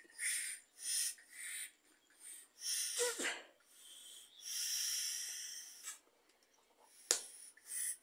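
A person blowing through a washing machine's water inlet solenoid valve to check that air passes through it: several short hissing puffs, then one longer blow lasting over a second about halfway through. The air is getting through freely. A sharp click comes near the end.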